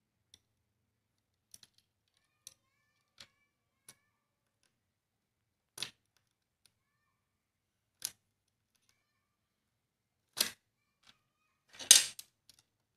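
Plastic parts of a Tomica car wash playset clicking and clacking as small pieces are handled and fitted onto the base plates: scattered light clicks, then two louder clacks near the end.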